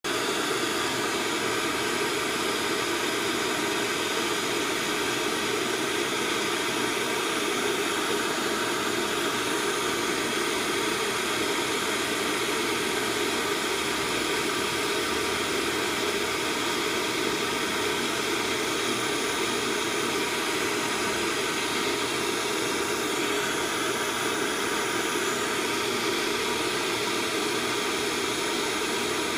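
Handheld gas torch burning with a steady blue flame, a constant rushing hiss that does not change, while it heats a metal head pin to fuse vitreous enamel frit onto it.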